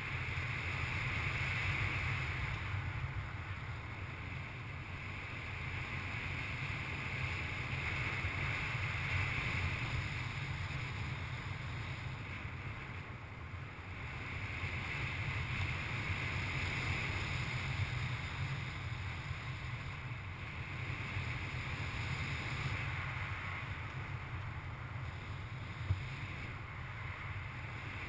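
Airflow rushing over the microphone of a paraglider pilot's harness-mounted camera in flight: a steady rush with a low rumble that swells and eases every few seconds, with one brief tap near the end.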